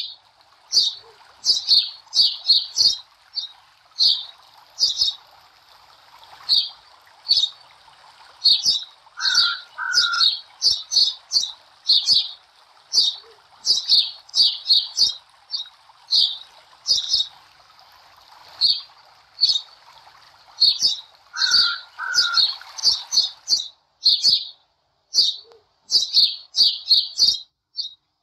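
Small bird chirping over and over: short, high chirps in quick runs, with brief pauses between runs. A faint steady hiss runs underneath until near the end.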